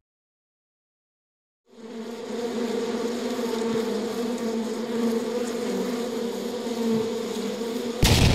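Quadcopter drone's propellers buzzing steadily at an even pitch, starting about two seconds in after silence. A sudden loud rumble cuts in right at the end.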